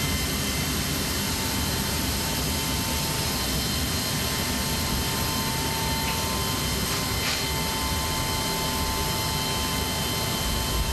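Steady rush and high whine of a military transport plane's running jet turbines, heard inside its cargo hold, with several constant tones held over the noise.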